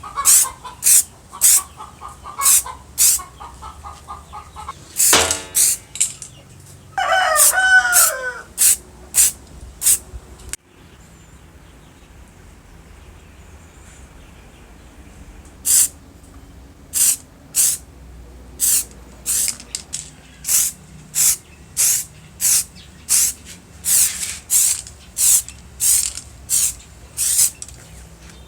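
Short hissing spray bursts repeated about twice a second, stopping for about five seconds in the middle. A rooster crows once in the background about seven seconds in.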